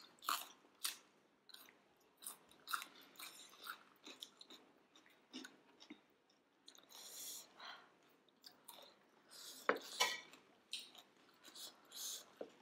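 Close-miked chewing and wet mouth sounds of people eating steamed momo dumplings, in irregular smacks and squishes, with a louder cluster about ten seconds in.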